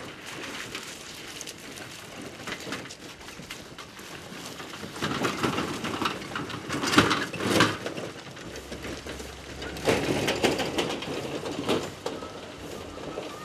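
Horse-drawn cart passing close by on frozen, gravelly ground: hooves clopping and wheels crunching over ice and stones, loudest about halfway through.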